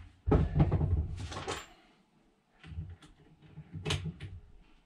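Knocks, clunks and rustling of hands-on work at a pull-down attic ladder frame, a man kneeling and shifting on the plywood attic floor. A busy cluster in the first second and a half, a short pause, then scattered knocks with one sharp click near four seconds.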